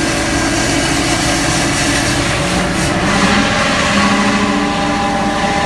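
Fuel truck engine running steadily at idle, a loud continuous drone whose tones shift slightly in pitch partway through.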